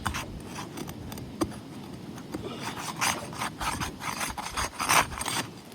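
A tool scraping and rubbing under an asphalt roof shingle to break its adhesive seal, in uneven strokes that are loudest about three seconds in and again near the end.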